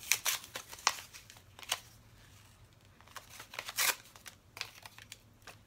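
Small plastic lip balm tubes and their packaging being handled: scattered clicks and short crinkly rustles, with a longer, louder rustle about four seconds in.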